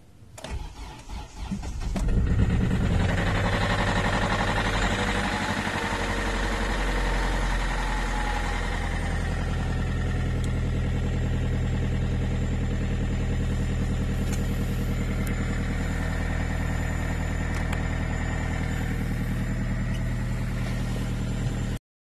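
Kia Cee'd CRDi common-rail diesel being cold-started at −25 °C, heard from inside the cabin. It cranks and sputters for about two seconds, catches, and settles into a steady cold fast idle at about 1000 rpm.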